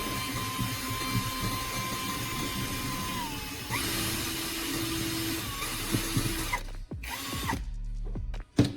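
A power tool running with a steady whine that dips in pitch a little after three seconds in. It cuts out about seven seconds in, and a few sharp knocks follow.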